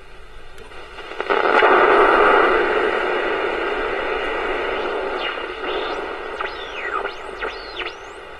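Hengxing pocket AM radio's speaker hissing with static while tuned between stations. The hiss swells suddenly about a second in, and from about five seconds in several whistles glide up and down in pitch as the tuning passes stations.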